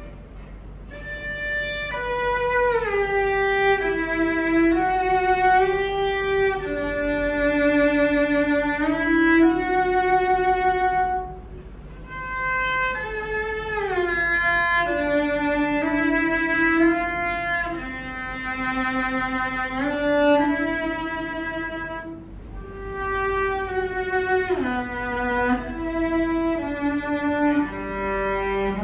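Solo cello bowed, fitted with an ebony tailpiece, playing a slow melody in phrases of held notes that step downward, with two short breaks between phrases. The tone is heavy and forceful in the bass and sharp on the high strings. A new, lower note starts just before the end.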